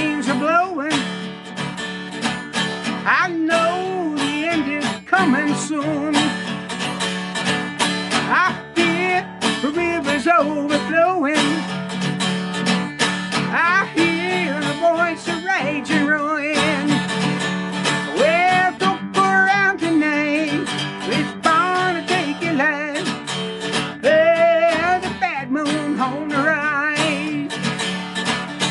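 Acoustic guitar strummed steadily, with a wavering melody line over it.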